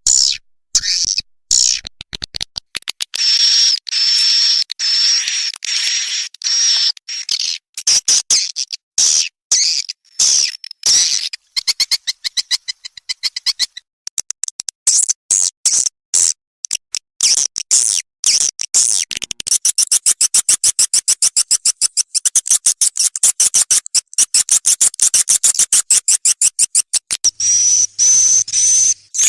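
Swiftlet lure-call recording: high-pitched rapid chirping and twittering trills of swiftlets. Partway through it changes to a fast, even run of clicking pulses. A sound of this kind is played to draw swiftlets into a nesting house.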